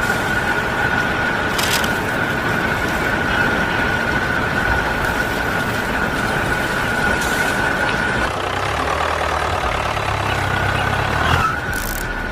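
Motor-driven machinery running steadily with a constant high whine. For about three seconds, starting around eight seconds in, the whine drops out and a lower hum takes over, then the whine returns.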